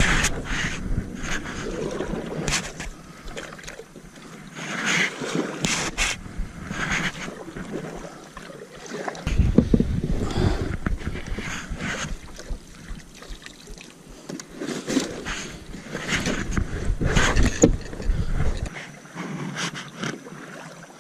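Kayak paddle strokes splashing in the water at an uneven pace of one every second or two, with wind buffeting the microphone now and then.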